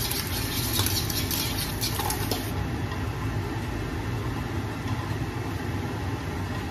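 Beaten eggs sizzling in a hot frying pan on a gas stove as they are stirred with a silicone spatula. The bright crackle eases about two and a half seconds in, over a steady low hum.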